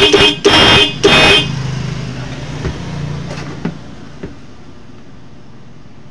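A pair of electric disc horns, switched through a starter relay from a small motorcycle battery, sound in three short honks within the first second and a half. A fainter low hum follows, then a few light clicks.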